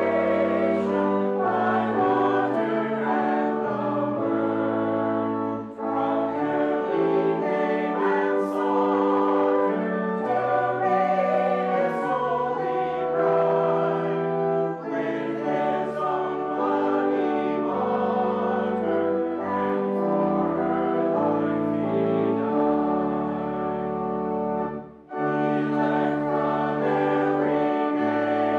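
Congregation singing a hymn with instrumental accompaniment, in sustained chords that move note by note, with brief breaks between phrases about six seconds in and again near the end.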